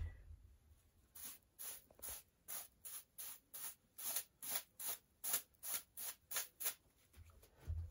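Small hand brush swishing over rolled-out bazlama dough, sweeping off the excess flour, in quick regular strokes about two to three a second, starting about a second in. A soft low thump near the end.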